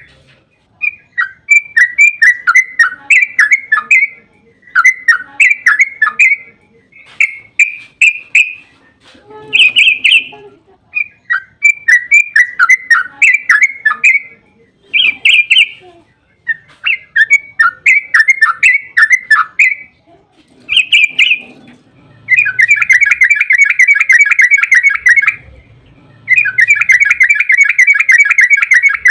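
Yellow-vented bulbul (trucukan) singing: repeated short bursts of quick chattering notes, then two longer rapid rolling trills near the end.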